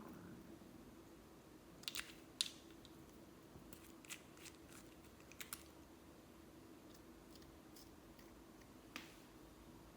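Slime being handled, giving a few scattered small crackles and clicks, the sharpest about two seconds in and one near the end, over a faint steady hum.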